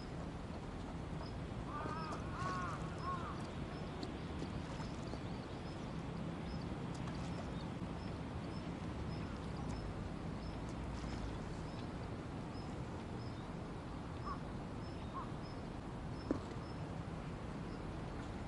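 Steady open-air background noise by a river, with a bird calling a few short rising-and-falling notes about two seconds in. A faint high tick repeats about once a second throughout, and a single sharp tap sounds near the end.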